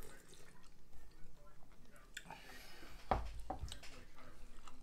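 Eating at a dinner table: faint chewing and small clicks of chopsticks and dishes, with one dull knock about three seconds in.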